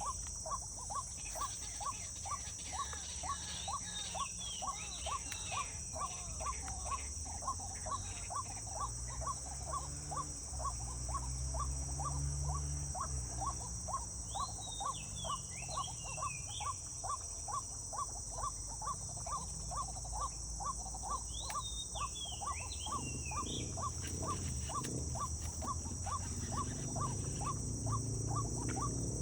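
Outdoor nature ambience: a steady high insect drone with a regular pulsed call about twice a second, and a bird giving short groups of quick up-and-down notes now and then. A low rumble swells underneath a few times.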